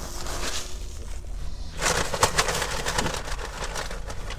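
Paper rustling and crinkling in the hands, a quick run of crackles about two seconds in lasting around a second, over a steady low hum.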